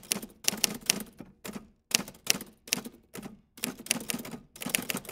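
Typewriter being typed on: quick runs of sharp key strikes in short bursts with brief pauses between them.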